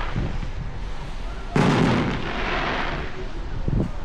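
Aerial fireworks exploding. The tail of one burst fades at the start, a sudden loud bang about one and a half seconds in rumbles away over a second, and a smaller crack comes near the end.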